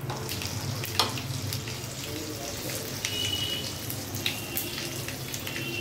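Hot oil sizzling and crackling in a frying pan as pieces of stuffed semolina rolls are laid into oil tempered with mustard, cumin and sesame seeds, with one sharper crack about a second in.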